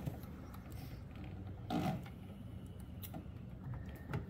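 Electrical wires and a crimp connector being handled during wiring: faint rustling with a few light clicks, the sharpest about two seconds in.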